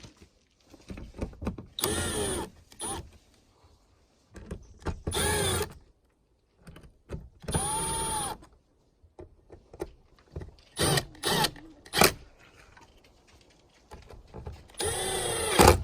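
Cordless drill-driver running screws into the Tesla Wall Connector's cover, in five short bursts of the motor spinning up and winding down, with small handling clicks in between.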